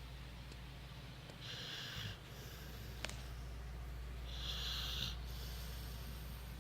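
Sleeping pit bull snoring: two breathy snores about three seconds apart, over a steady low hum.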